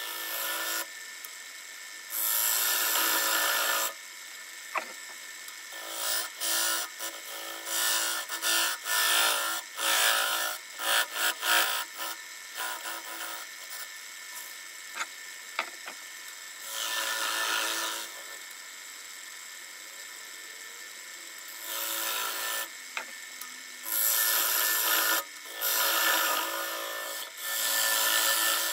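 Wood lathe running steadily while a tool works a spinning live-edge maple bowl, giving irregular bursts of scraping wood noise, mostly a second or two long, over the lathe's steady hum.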